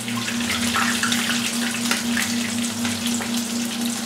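A coated trout fillet pan-frying in shallow hot oil in a skillet over medium heat: a steady sizzle with dense crackling and popping.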